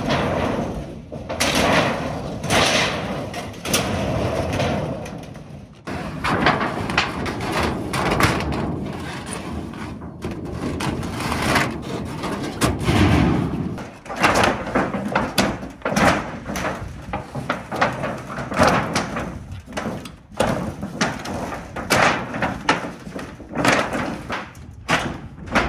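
Old corrugated sheet-metal roofing panels being pried off the roof framing and dragged over it: repeated bangs, clatters and rattles of flexing sheet metal.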